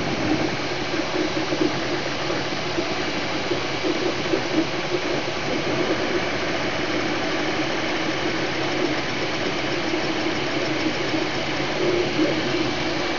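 MakerBot Replicator desktop 3D printer running a print: a steady whirring hum from its stepper motors and cooling fans, with a middle tone that swells and fades as the print head moves.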